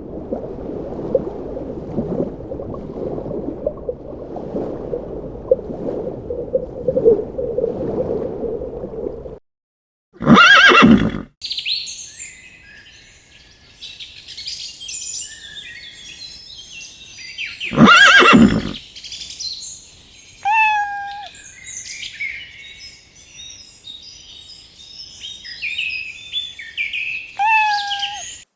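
A horse whinnying loudly twice, about seven seconds apart, over continuous birdsong with short falling calls. Before them, for about nine seconds, a dense low noisy clatter runs, then stops suddenly.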